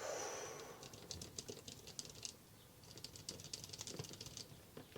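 A short scratchy rub at the start, then freshly greased Durock Blue mechanical key switches pressed rapidly over and over: two quick runs of faint clicks, about a second and a half each.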